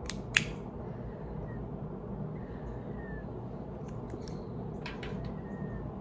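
A lighter clicked to relight a tobacco pipe: one sharp click just after the start, then fainter clicks about five seconds in, over a steady low hiss.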